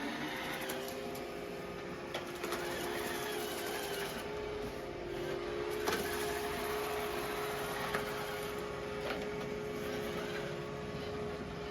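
Roomba i5+ robot vacuum running on carpet: a steady motor hum with a held whine over brushing noise, and a few brief clicks along the way.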